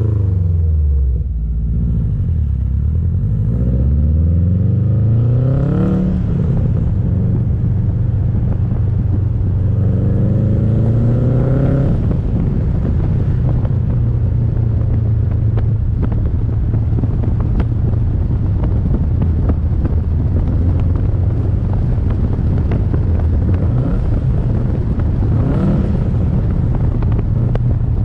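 Exhaust and engine of a 2007 Subaru WRX STI, its turbocharged 2.5-litre flat-four breathing through a catless downpipe and HKS cat-back, heard from a camera mounted outside the car while driving. The pitch falls, then climbs twice as the car accelerates, dropping sharply at each gear change, and then settles into a steady rumble at cruise.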